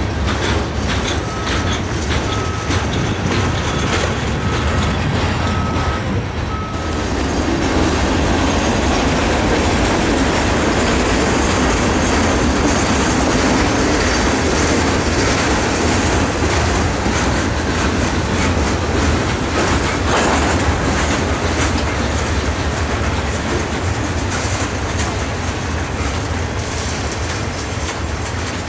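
Freight cars rolling past at close range: a steady rumble of steel wheels on rail, with clicks as the wheels cross the rail joints. For the first seven seconds a faint high tone pulses about every two-thirds of a second. About seven seconds in, the sound changes to a louder, fuller rumble of a string of hoppers and boxcars going by.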